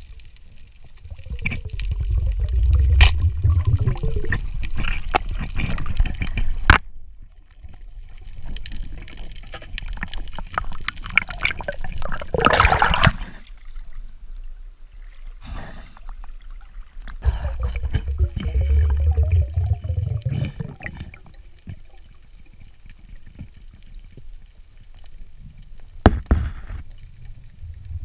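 Water sloshing and gurgling around an underwater camera, coming in surges, with a few sharp knocks.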